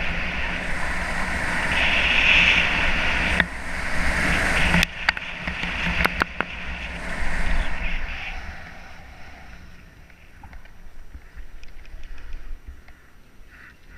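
Wind rushing over a helmet-mounted camera during a downhill run, with the hiss and scrape of edges on packed snow. A few sharp clicks come around five to six seconds in, and the rush dies down after about eight seconds as the run slows.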